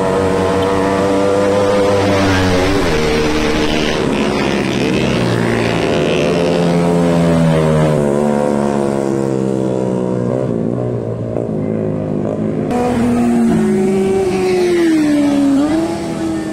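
Motorcycle engines running and revving as bikes ride past, the engine pitch rising and falling over several seconds. The sound changes abruptly about thirteen seconds in.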